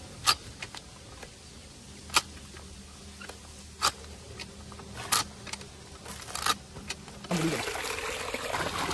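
Knife chopping the country chicken into pieces: single sharp knocks a second or two apart, with lighter ticks between. Near the end, water starts running or being poured.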